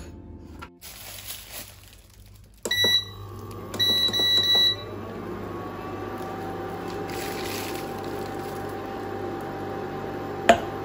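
Tabletop electric cooktop beeping as its buttons are pressed to switch it on: a short beep, then a longer one about a second later. Then its fan and element run with a steady hum and a thin whine, and a single sharp tap comes near the end.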